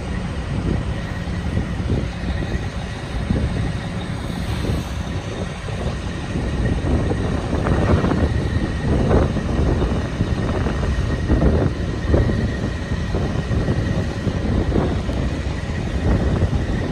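Loram rail grinder train running on the track: a loud, dense, steady noise with a faint steady high tone through it, and wind on the microphone.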